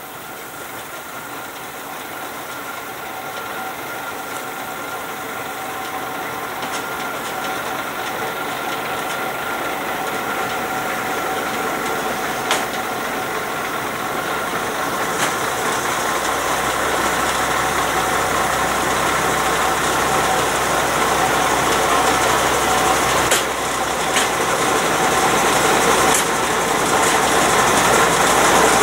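TU4 narrow-gauge diesel locomotive approaching slowly, its engine running with a steady whine that grows louder throughout. A deeper rumble comes in about halfway, and a few sharp clicks come from the wheels on the rails near the end.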